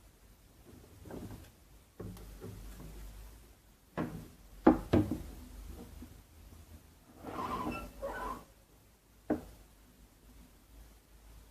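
Handling noises at a workbench: a few sharp clicks and knocks, with a stretch of rubbing or scraping in between, as parts of the old keyboard are worked on.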